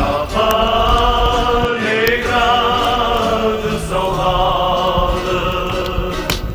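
Music: a choir of voices holding long, wordless notes.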